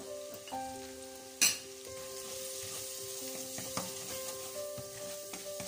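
Chopped onion and garlic sizzling in hot oil in a stainless steel frying pan as ginger powder is stirred in with a plastic spatula, the onions already slightly golden brown. A single sharp knock about one and a half seconds in.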